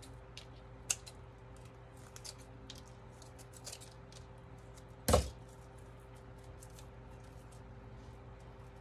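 Faint rustling and small crackly clicks of dry raffia being gathered and bundled by hand, with one short knock about five seconds in. A steady low hum runs underneath.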